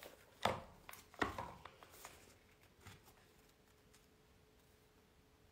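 A large hardcover Quran handled on a table and laid open: two sharp knocks in the first second and a half, then a few lighter handling and page sounds, under a faint steady hum.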